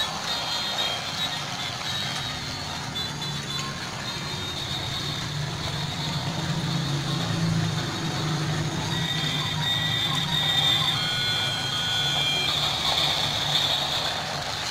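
Battery-powered toy train locomotive running steadily around its plastic track, its small electric motor whirring as it pulls a string of wagons.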